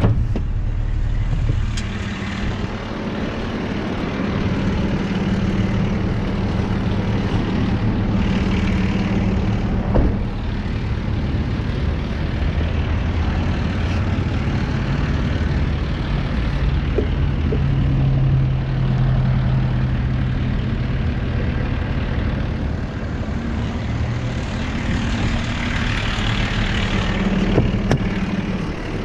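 Tow truck's engine running with a steady low drone that shifts slightly in pitch, and a single sharp knock about ten seconds in.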